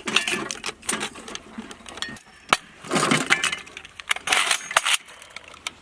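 KPV 14.5 mm heavy machine gun firing short, irregular bursts of sharp cracks, mixed with metallic clinking; the densest bursts come about three and four and a half seconds in.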